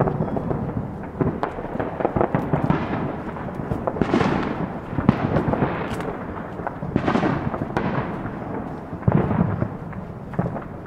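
Many fireworks going off around the neighbourhood at once: a dense, continuous run of pops, crackles and low rumbling booms, with two louder, longer bursts about four and seven seconds in.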